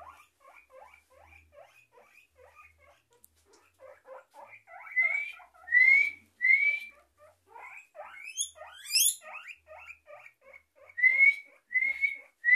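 Guinea pigs wheeking for food. A quick run of short squeaks builds into loud rising whistles from about five seconds in, with a high climbing squeal around nine seconds.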